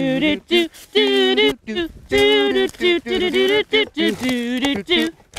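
A voice singing a melody in short phrases, with held notes that waver in pitch.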